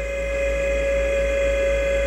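GT27 CNC gang-tool lathe running a turning cut with coolant spraying on the spinning part: a steady high tone from the machine's drive over a constant low rumble and a faint spray hiss.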